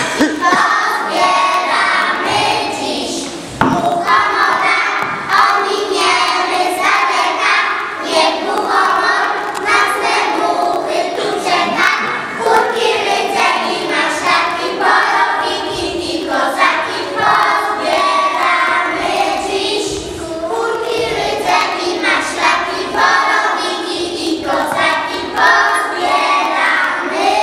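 A group of young preschool children singing a song together.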